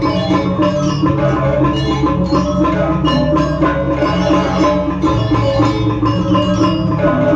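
Balinese gamelan playing a bebonangan-style piece: fast interlocking bronze gong-chime figures over drumming and deep sustained gong tones, with the low tones changing pitch about five seconds in.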